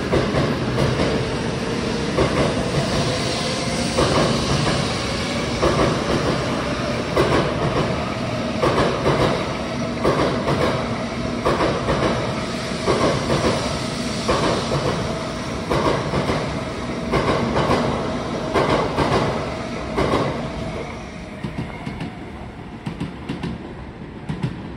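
N700-series Shinkansen bullet train pulling out past the platform: a steady rumble and hiss with a clatter of wheels about every second and a half as each car goes by. It fades near the end as the last cars pass.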